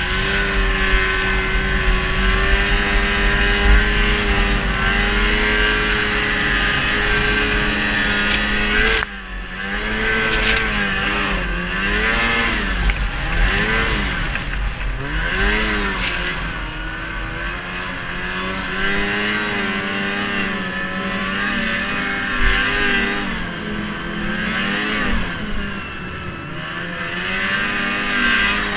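Arctic Cat 440 snowmobile's two-stroke engine running at a steady speed. About nine seconds in it drops off briefly, then revs up and down several times before settling back to a steadier run.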